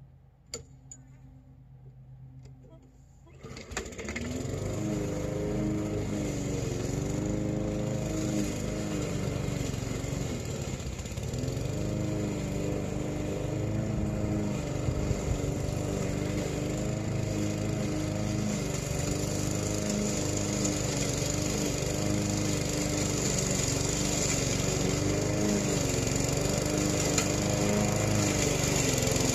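Small gas engine of a Yard Machines push mower, starting abruptly about four seconds in after a few faint clicks, then running steadily while mowing grass, its pitch dipping now and then under load.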